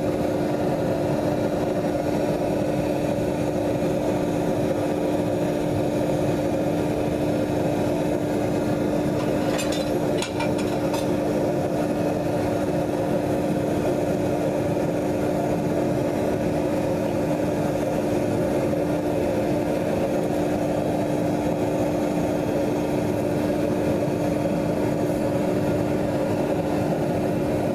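Hydraulic press power unit running steadily: a continuous machine hum with one strong steady tone. A few light metallic clicks sound about ten seconds in.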